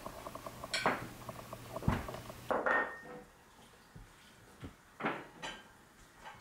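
Crockery clinking and knocking as dishes are set out, a series of separate sharp clinks, one ringing briefly about two and a half seconds in.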